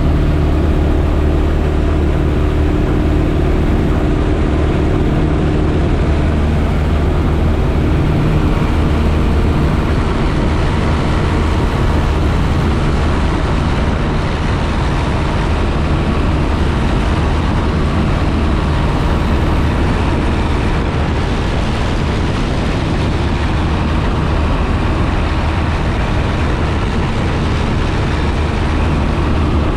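Piper J-3 Cub's engine running steadily with propeller and airflow noise, heard from inside the cockpit. A higher hum fades out about six seconds in.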